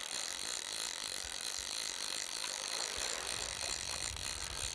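Fly reel's click-and-pawl drag ratcheting steadily while a hooked Arctic char is being played on the line.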